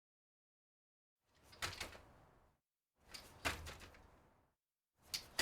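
Three separate clattering impacts, each a quick rattle of clicks dying away over about a second, with dead silence between them.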